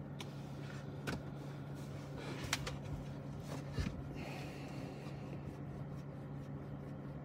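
Quiet car-cabin background: a steady low hum with a few faint clicks, like small handling noises.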